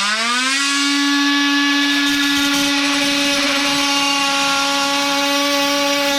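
Electric power tool used to cut through a stuck part: its motor spins up with a rising whine, then runs loud at a steady pitch.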